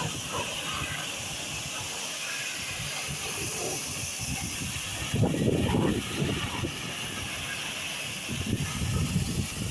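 A pressurised jet hissing steadily, with louder low rumbling gusts about five seconds in and again near the end.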